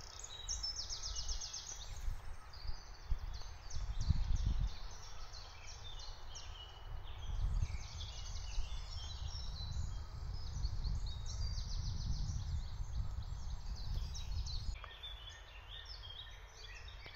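Several small woodland birds singing and calling, with quick chirps and trills throughout. Underneath runs a low rumble that swells about four seconds in and again through the middle.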